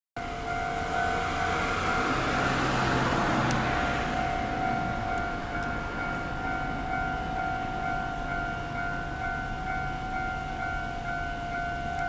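Level-crossing electronic warning bell ringing steadily, the signal that a train is approaching and the barriers are lowering. A car passes by in the first few seconds, rising and fading under the bell.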